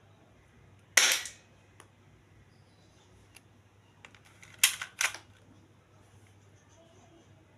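Toy Beretta M9A3 replica pistol firing. One sharp shot comes about a second in, then two more shots in quick succession about half a second apart, with faint clicks between them.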